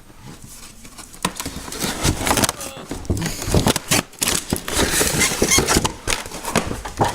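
Plastic packaging crinkling and hard plastic hair dryer attachments clattering as they are handled and unpacked, in irregular bursts of rustles and knocks starting about a second in.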